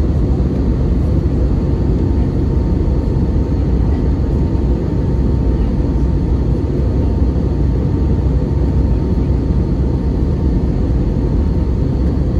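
Cabin noise of an Airbus A320neo (A320-271N) in flight, heard from a window seat beside its Pratt & Whitney PW1127G geared turbofan: a steady deep rumble of engine and airflow with a faint, steady whine above it.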